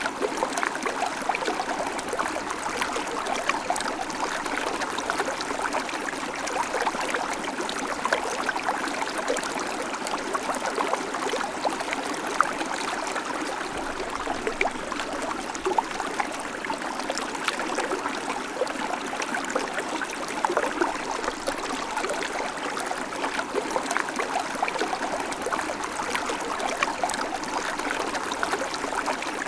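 Babbling creek: shallow water running steadily over rocks, with constant small splashes and gurgles.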